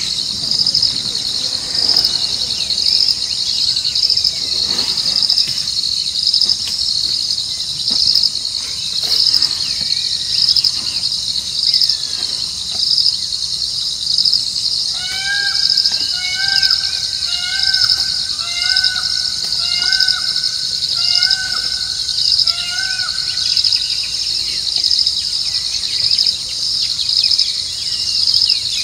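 Night insects such as crickets chirping in a steady, loud, high pulsing drone, about two pulses a second. About halfway through, a bird repeats a short rising-and-falling note about ten times, just under a second apart. Fainter scattered bird chirps come and go.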